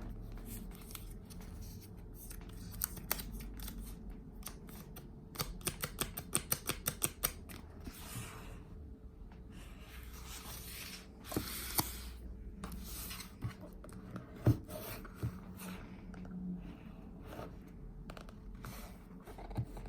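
Handling noises: rubbing and rustling with scattered clicks, a quick run of clicks about five to seven seconds in, and a few sharp knocks.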